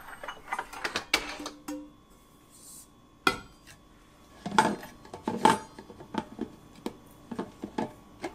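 Stainless thermal carafe of a Keurig K-Duo Plus being slid out of the coffee maker and set down on a stone countertop, followed by plastic clicks and knocks of its lid being handled. The sound is a scattered series of clicks and knocks, the loudest a few in the middle.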